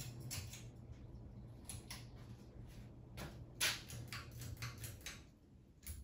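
A faint, steady low hum that cuts off about five seconds in, with scattered light clicks and knocks.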